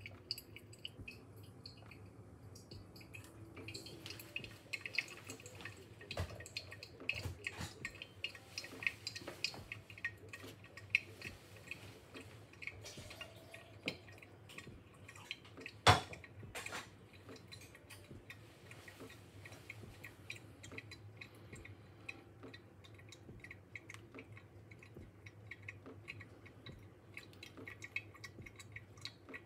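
Quiet pour-over coffee brewing: light drips, taps and clinks of the brewing gear, with one sharper knock about halfway through.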